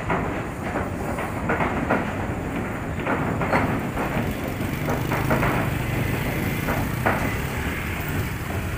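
A vehicle crossing a steel truss bridge's road deck: irregular clacks and knocks from the deck boards under the wheels over a steady rumble, with an engine hum coming up in the middle.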